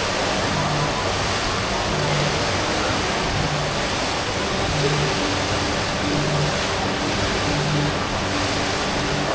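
Steady rushing of water falling from an indoor waterfall and fountain display, with a low note pulsing underneath about every one and a half seconds.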